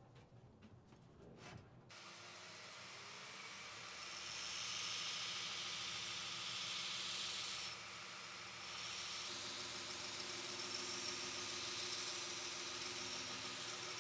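Belt grinder starts up about two seconds in after faint handling clicks, then runs steadily while the steel axe head is ground against the moving abrasive belt: a continuous hissing grind over the motor's hum, easing briefly about eight seconds in.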